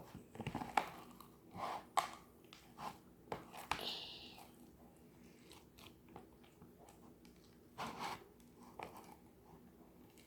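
Slime with Play-Doh in it being squeezed and kneaded by hand: quiet, irregular squishes and clicks, with a lull in the middle.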